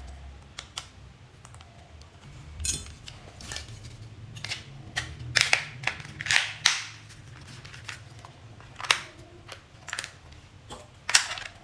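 Irregular sharp clicks and knocks of small hard objects, about a dozen, the loudest around the middle and just before the end, over a faint low hum.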